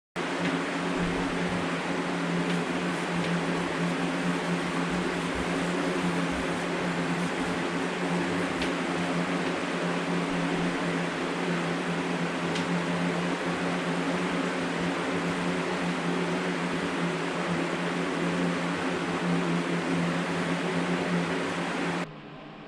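Electric fan running steadily: an even rushing of air over a low motor hum, cutting off abruptly near the end.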